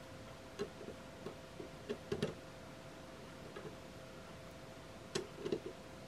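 Light metallic clicks and taps of a steel wing nut and bolt knocking against the wrench slot of a steel credit-card multi tool as it is fitted and turned, bunched in two short clusters about two seconds in and about five seconds in.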